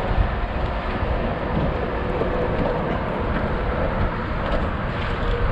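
Steady wind rumble buffeting the microphone, a continuous low, noisy roar with no distinct events.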